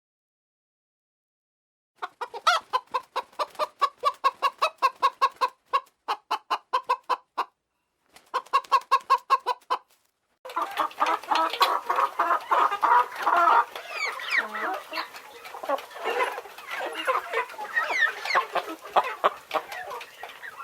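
Domestic chickens clucking: about two seconds in, a hen gives rapid, evenly paced clucks in three bouts, then about halfway through a denser flock chorus of overlapping clucks and short rising chirps takes over.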